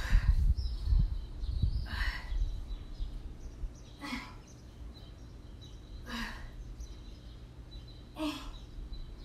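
A woman's forceful exhalations, five in all, about one every two seconds, keeping time with her tricep dips. Low rumbling thumps run through the first two seconds.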